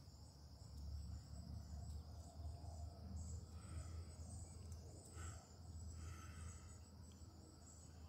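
Faint, steady high-pitched trill of insects, continuous throughout, over a low rumble.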